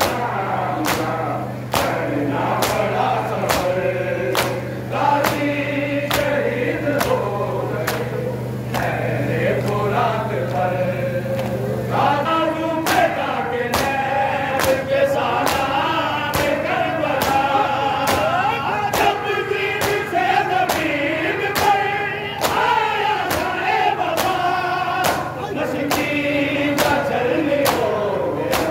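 A group of men chanting a noha, the Muharram lament, in chorus, with a steady beat of chest-beating (matam) thumps.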